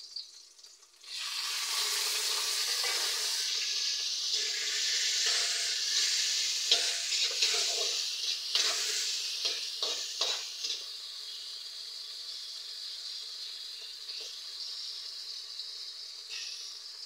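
Shallots, garlic and tomato pieces frying in hot oil in a metal wok. A loud sizzle starts about a second in, with a spatula clinking and scraping against the wok as it stirs, then settles to a softer steady sizzle.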